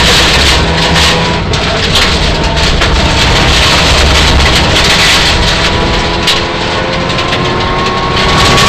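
Inside the cabin of a Mitsubishi Lancer Evolution IX rally car at stage speed: the turbocharged four-cylinder engine running hard under heavy gravel and road noise, with stones clicking against the underbody. The engine note dips briefly about six seconds in, then rises again near the end as the car accelerates.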